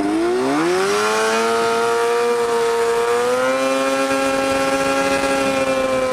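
Two-stroke snowmobile engine in a go-kart revving up over the first second and a half, then holding a steady high pitch under full throttle, with a small further rise about three and a half seconds in.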